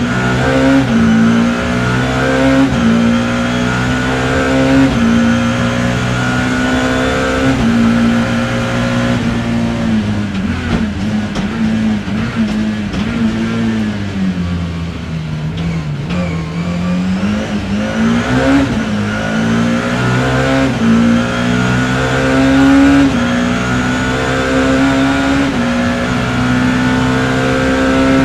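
BMW E30 M3 race car's four-cylinder S14 engine heard from inside the car, revving up through the gears with quick upshifts, the pitch climbing and dropping every second or two. About ten seconds in the revs fall away slowly for several seconds, as when slowing for a corner, then climb again through a run of upshifts.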